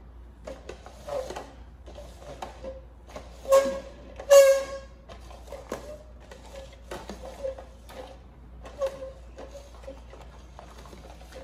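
Red plastic party cups being slid and shuffled on a glass tabletop: a run of quick taps and scrapes, with two louder pitched squeaks about three and a half and four and a half seconds in.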